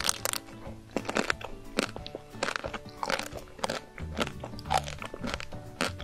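Chocolate shell of a chocolate-coated ice cream bar cracking and crunching in a run of crisp bites and chews, over background music.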